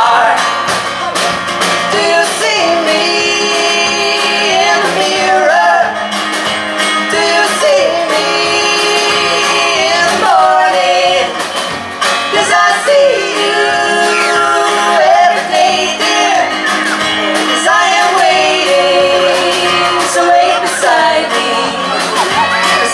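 Live band playing a song: a woman singing lead with a man's voice joining in, over strummed acoustic guitars and a drum kit.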